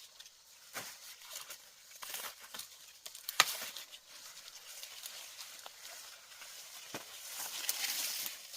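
Dry corn plants rustling and crackling as ears are picked, with a few sharp snaps; the loudest snap comes about three and a half seconds in.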